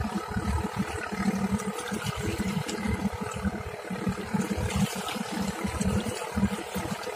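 Steady drone of a passenger fast ferry's engines across the water, mixed with water noise and irregular low buffeting of wind on the microphone.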